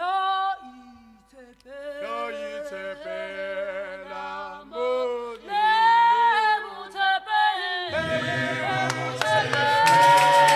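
Apostolic church choir singing a Setswana hymn: a lead voice sings a line unaccompanied, then about eight seconds in the full choir comes in with a steady drum beat.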